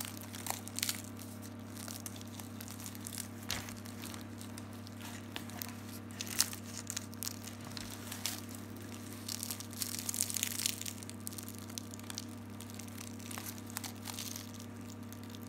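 The crisp, flaky crust of a baked layered saya çöreği crackling and tearing as fingers press into it and pull it apart. It comes as scattered faint crackles, thickest about ten seconds in, over a steady low hum.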